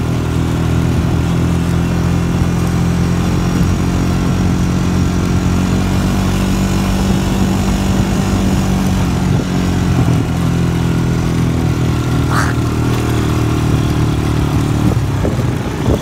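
ATV engine running at a steady riding speed, heard from on board the moving four-wheeler.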